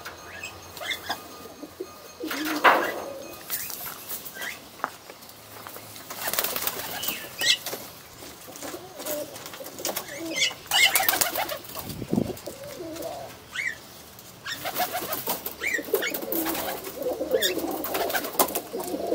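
Domestic pigeons cooing repeatedly, mixed with scattered rustles and brief wing flutters, the sharpest noise about three seconds in.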